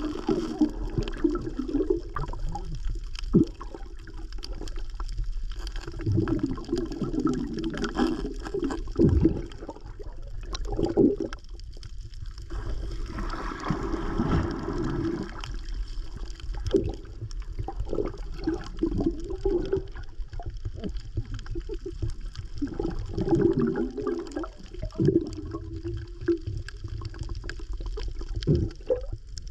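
Muffled gurgling and bubbling of water picked up by a camera held underwater, with scattered short knocks and clicks.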